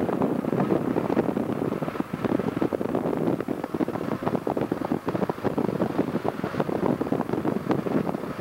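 Wind rushing and buffeting on the microphone from a moving car, over a steady rumble from the vehicle. The wind comes in quick, irregular gusts.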